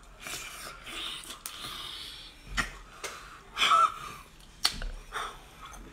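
Close-up mouth sounds of eating a sauce-soaked sea cucumber: a breathy slurping and sucking for the first couple of seconds, then a few sharp wet clicks and squelches as it is bitten and torn.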